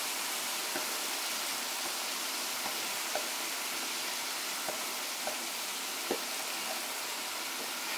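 Onions, tomatoes and green chillies frying in butter in a wok: a steady sizzle with a few faint pops, as cream is poured into the pan.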